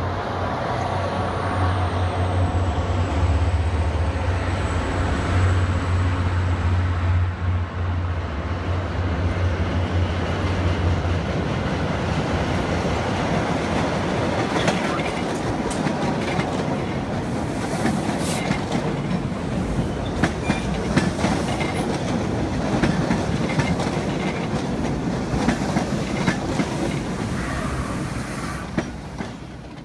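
MBTA Orange Line subway train rolling in and passing close by, wheels clicking rapidly over rail joints with some squeal. A deep steady engine drone, from the commuter rail diesel locomotive on the next track, runs through the first ten seconds or so. The sound dies away near the end.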